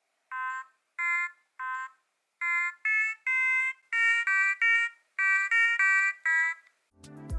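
Mini Otamatone played as a short melody: about a dozen short, buzzy electronic notes at changing pitches, thin and without bass from its tiny speaker.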